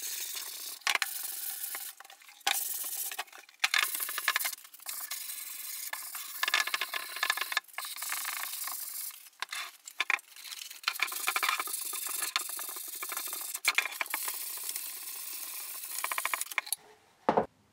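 Sandpaper rubbing across pine by hand: an irregular run of scratchy sanding strokes with short pauses between them, as the tray is sanded all over before finishing. A single low thump near the end.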